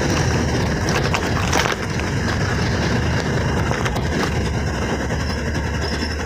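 Vehicle driving over a rough, patched road surface: steady engine and tyre noise with rattling knocks as the wheels hit the uneven patches, a cluster of them about a second in.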